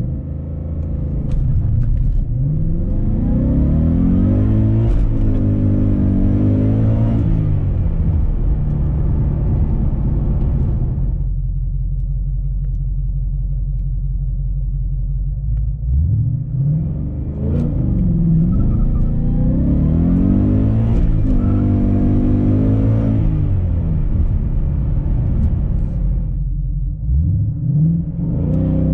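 Supercharged 5.0-litre V8 of a 2020 Ford Mustang R-SPEC, heard from inside the cabin with the car stationary, rumbling at idle and revved up and down repeatedly in two spells with steady idle between, the revs rising again near the end.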